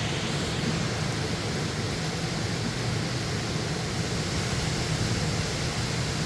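Mountain creek rushing over rocks and small falls: a steady, even rush of water.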